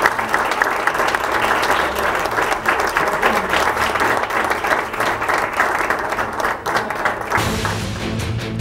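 Audience applauding, a dense run of clapping. About seven seconds in, music with a steady beat takes over.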